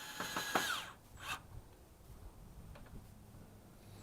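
Power drill-driver motor spinning at a steady pitch, then winding down with falling pitch under a second in. A short scrape and a few light clicks follow.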